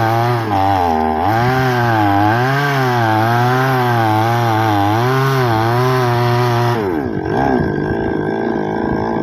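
Two-stroke chainsaw cutting wood, its engine pitch wavering up and down as the chain loads and frees in the cut. About two-thirds of the way through, the sound changes abruptly to a different, steadier engine-like drone.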